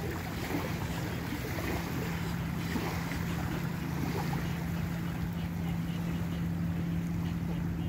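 A steady low engine drone, with wind on the microphone and small waves lapping at the shore.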